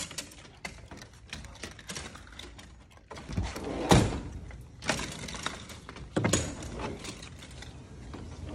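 A glass-paned back door being unlatched and opened: a run of clicks and rattles from the latch and frame, with a heavy knock about four seconds in and a few more knocks after it.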